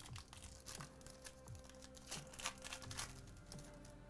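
Plastic trading-card pack wrapper crinkling as it is torn open, then cards being handled, in a run of short crackles lasting a couple of seconds. Faint background music underneath.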